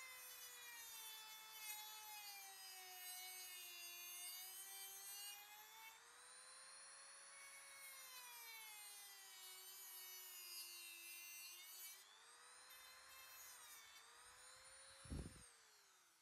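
Rotary tool with a thin cut-off disc cutting through metal pins in a wooden knife handle: a faint whine whose pitch slowly drops and recovers several times. Near the end there is a brief knock before the whine falls away.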